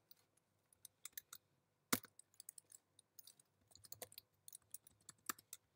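Faint, irregular keystrokes on a computer keyboard as a line of code is typed, with one sharper key click about two seconds in.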